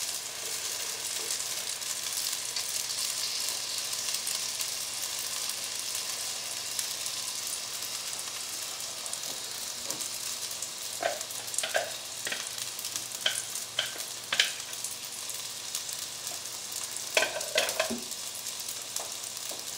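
Electric skillet sizzling steadily as blended cream sauce is poured over the hot fettuccine, with a few light knocks and clinks about halfway through and again near the end.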